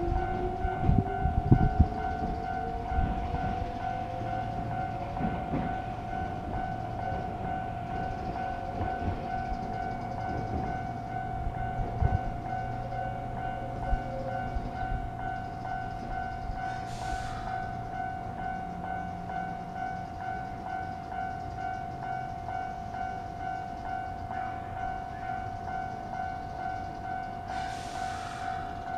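A Japanese railway level-crossing warning bell rings steadily with its repeating electronic clang. Meanwhile an electric train pulls through, its motor whine rising in pitch over the first dozen seconds as it accelerates, with wheel clicks over the rail joints in the first few seconds. Two brief hisses come later.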